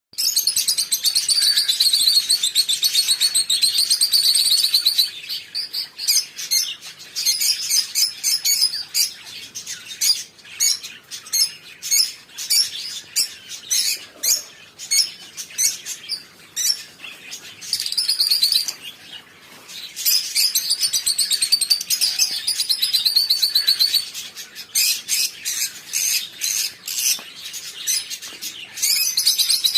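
A flock of caged small parrots (lovebirds) chattering and chirping. The chirps are high-pitched and come in stretches of fast, continuous chatter, with scattered single sharp chirps in between.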